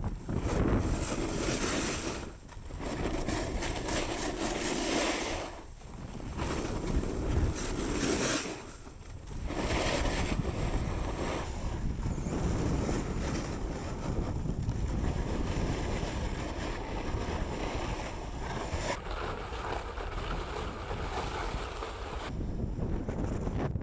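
Snowboard hissing and scraping over packed snow, with wind rushing over the camera's microphone; the rush eases off briefly about three times in the first half, then runs on evenly.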